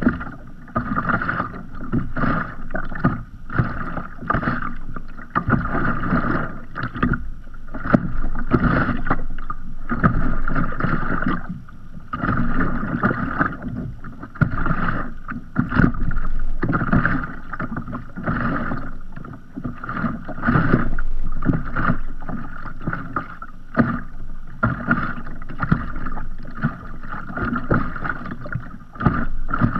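Small sea waves lapping and slapping against the hull of a floating kayak, in irregular splashes close together.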